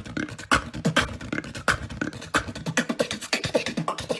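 Beatboxer's freestyle: fast, rhythmic mouth percussion of kick drums, snares and clicks, with short pitched bass and vocal tones woven between the hits.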